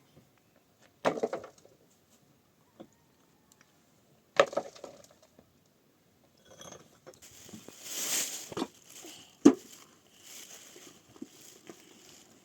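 Knocks and clatter of hard objects being handled, with a loud sharp knock near the end and a stretch of rustling, scraping noise in the second half.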